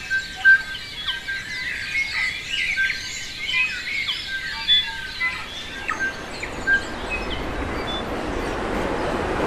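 A dense chorus of forest birds: many overlapping chirps, whistles and gliding notes. About six seconds in, the birdsong thins and gives way to a steady, swelling rush of water.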